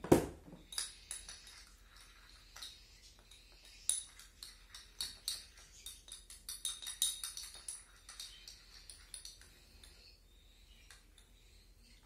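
A thump at the start, then a quick, irregular run of small clinks of a utensil against a dish, typical of hand-feeding formula being mixed for cockatiel chicks; the clinks die away about ten seconds in.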